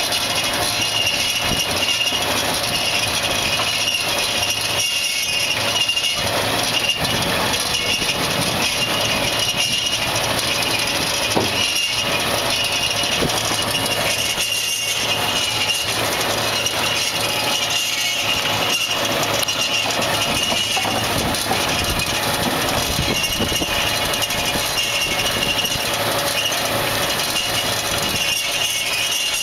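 Univerco carrot harvester with its crowning system running through a carrot row at about 5 miles an hour: a steady, loud mechanical clatter and rumble, with a high whine that comes and goes.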